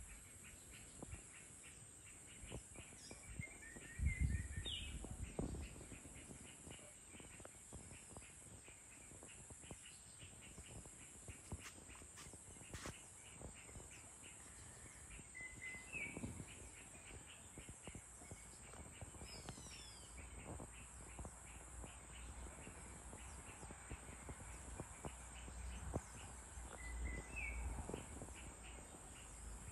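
Faint evening outdoor ambience: birds give short chirps every several seconds, with a falling whistle about two-thirds of the way in, over a faint, even, quick pulsing. Soft low rumbles rise a few seconds in and again near the end.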